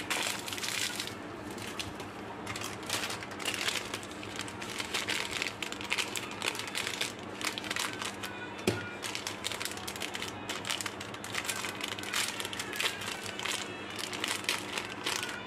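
Crinkling and crackling of candy wrappers being handled and unwrapped by hand, with one sharp tap about nine seconds in.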